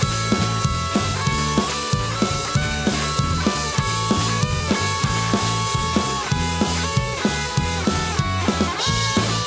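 Instrumental break of a pop-rock jingle: guitar melody over bass and a steady drum-kit beat, with no singing.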